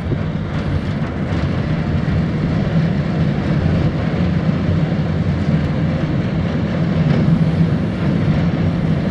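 Diesel engine of a passing inland cargo ship running steadily with a low, even hum that slowly grows a little louder.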